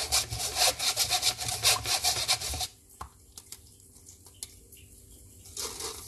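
Wire whisk scraping lumpy batter through a fine metal mesh sieve, a quick, repeated rasping that stops about two and a half seconds in. After a quiet stretch with a few light taps, the whisk stirs briefly in the bowl near the end.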